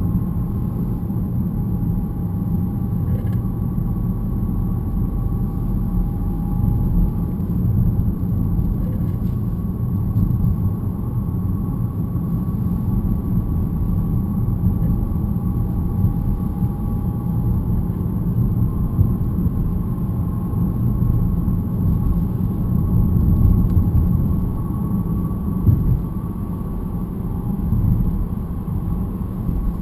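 BMW E90 318 on the move, heard from inside the cabin: steady road and drivetrain rumble with a thin metallic whine on top, two faint tones that drift slightly up and down in pitch. The owner puts the whine down to the differential.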